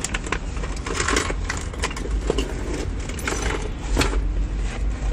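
Inside a car cabin: low, steady engine and road rumble as the car pulls forward, with irregular clicks and rattles throughout.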